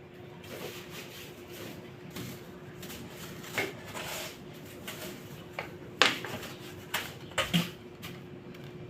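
A person sneezing several times, from a dust allergy: short sharp bursts, the loudest about six seconds in and two quick ones close together near the end.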